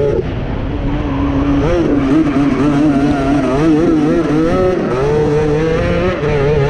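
Grass kart engine racing under hard throttle. Its pitch drops sharply at the start as the driver lifts off for a corner, then climbs and wavers as it accelerates out, dips again about five seconds in and picks up near the end.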